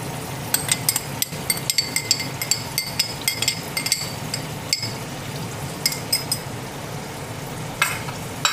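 Onion, garlic and tomato masala sizzling steadily as it fries in oil in an aluminium pot, with a run of quick metallic clinks as a spoon taps against the pot in the first half, and a few more clinks near the end.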